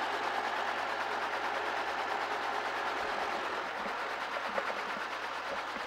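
Robinson piston-engine helicopter running on the ground with its main rotor turning, warming up before lift-off: a steady mechanical rush with a faint fast beat.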